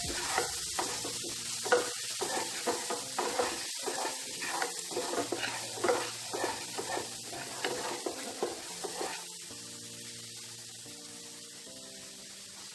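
Wooden spatula scraping and stirring around a frying pan of sizzling oil with mustard seeds, curry leaves and ginger-garlic paste, kept moving so the paste doesn't stick and burn. The stirring stops about nine seconds in and the sizzle goes on, quieter.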